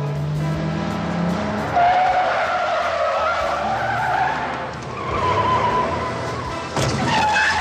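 Car tyres squealing in long, wavering screeches as a car is driven hard, over its engine and background music, with a brief noisy burst near the end.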